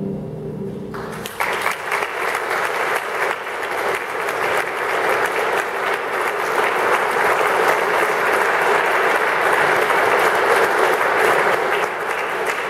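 The final chord of a harp ensemble rings out and fades, then an audience breaks into applause about a second in and keeps clapping steadily.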